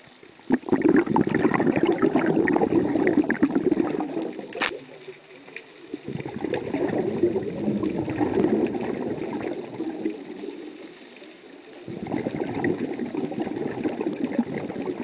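Underwater bubbling from a scuba diver's exhaled breath through the regulator, in three long bursts of a few seconds each with quieter pauses between them. There is a single sharp click about four and a half seconds in.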